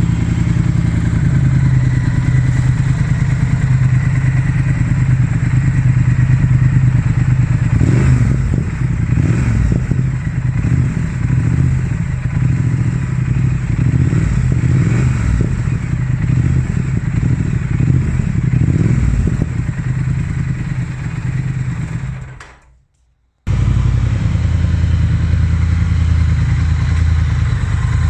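Triumph Speed Twin parallel-twin engine idling through its exhaust, with the throttle blipped repeatedly in the middle. The sound cuts out abruptly for under a second, then a motorcycle engine idles again.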